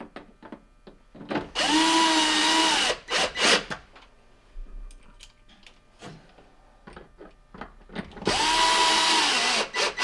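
Cordless drill/driver driving in two quarter-inch screws, in two runs of about a second and a half each. The motor whine rises as it spins up and falls away as it stops. Sharp knocks come just after the first run, with lighter clicks of handling between.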